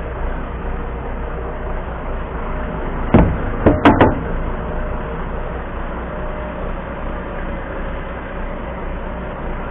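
Heavy diesel engine running steadily with a low hum. About three seconds in, four sharp knocks come within a second, the loudest sounds in the stretch.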